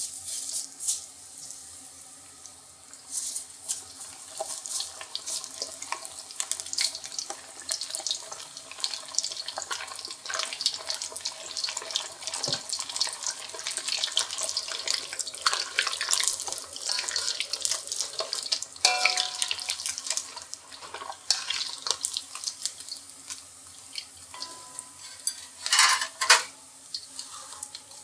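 Water running from a kitchen tap into a sink and splashing unevenly, as if something is being rinsed under it. A few short ringing metallic clinks come in the second half.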